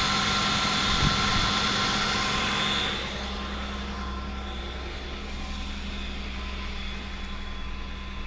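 BMW M50B25 2.5-litre straight-six running at a steady idle, with no knock; the overall level drops about three seconds in. The owner hears the knock he suspects comes from the VANOS only from about 2000 rpm, not at idle.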